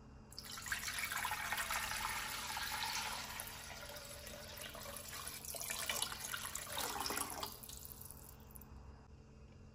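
Water poured in a stream into a stone-coated cooking pot over raw chicken legs, splashing as it fills. The pour starts just after the beginning, and it thins and stops about seven and a half seconds in.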